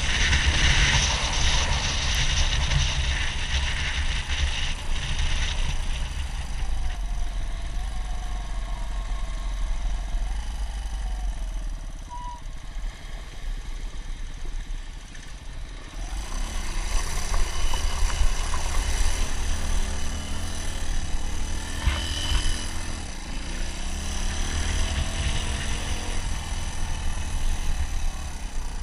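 Suzuki DR200's single-cylinder four-stroke engine running as the motorcycle is ridden, the revs rising and falling. It eases off for a few seconds in the middle, then picks up again.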